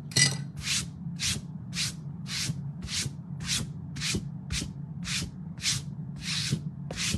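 Rhythmic rubbing or scraping strokes, evenly spaced about twice a second, over a low steady hum, with a few sharp clicks at the very start.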